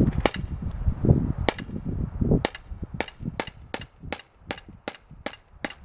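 BB gun shots: about eleven sharp cracks, a second or so apart at first and then quickening to about three a second, with low thuds among the early shots. None of the shots sets off a primer in the fruit.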